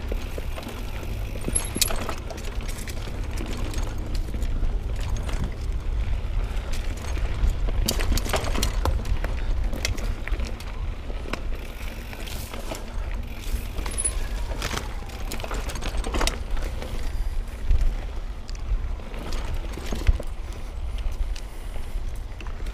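Mountain bike riding over a rough trail of roots and rocks: tyres rolling, with the bike rattling and clunking in frequent short knocks over a steady low rumble.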